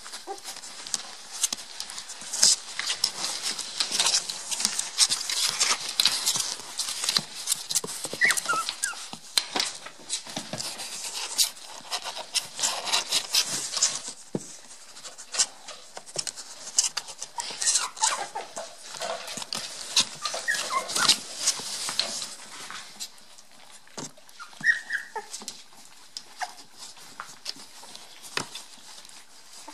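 Cocker spaniel puppies playing and scuffling: claws scrabbling and fur brushing close against the microphone make a dense scratchy crackle that eases in the last third, with a few short high puppy whimpers and yips scattered through.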